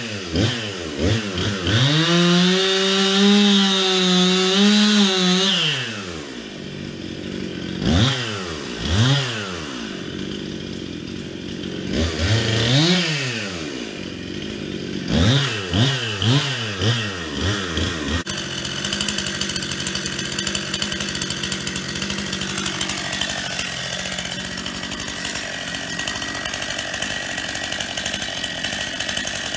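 Stihl two-stroke chainsaw revving up and down in repeated bursts while cutting a fallen pine trunk, holding high speed for about three seconds near the start. After about eighteen seconds it runs at a steady, even speed.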